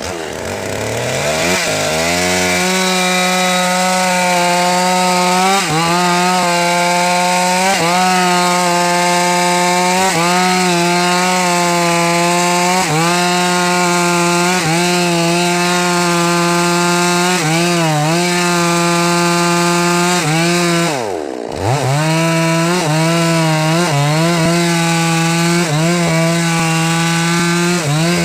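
Two-stroke chainsaw revving up from low speed to full throttle and running hard, its engine note dipping briefly every few seconds as it cuts wood. About three quarters of the way through, the revs fall sharply and climb straight back up.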